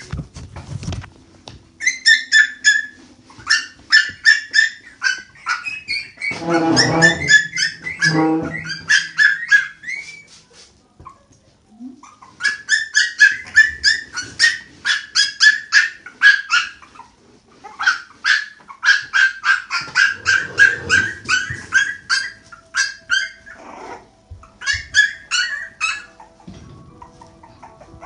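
Puppies squealing and whining in fast runs of short, high-pitched cries, with a brief lull about halfway through. A lower, longer cry comes twice about a quarter of the way in.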